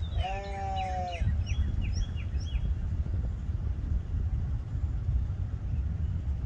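Steady low wind rumble on the microphone. Near the start there is one pitched animal call lasting about a second, and small birds chirp in quick, falling notes over the first two or three seconds.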